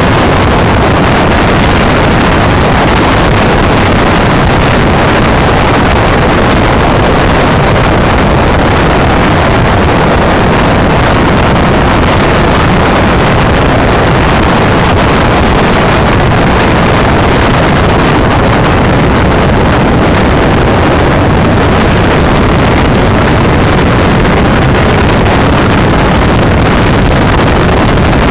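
Loud, steady wind buffeting on the microphone mounted on a Greenpower electric race car running at speed, mixed with road rumble from the tyres.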